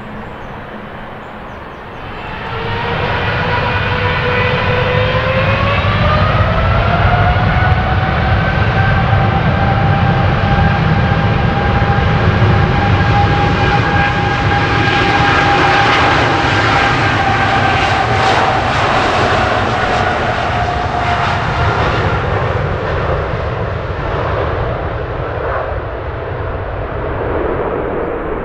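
Boeing 777-300ER's GE90 turbofan engines spooling up to take-off thrust. Loudness climbs about two seconds in, with a whine rising in pitch and levelling off into a steady, loud running sound over a deep rumble as the jet rolls down the runway. It eases somewhat near the end.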